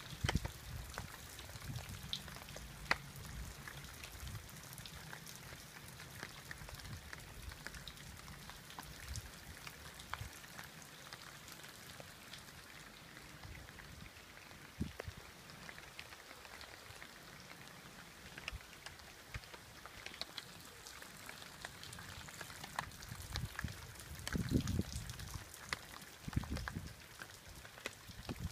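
Rain falling steadily, with many separate drops ticking close by over a soft hiss. A few low rumbles swell up near the start and again near the end.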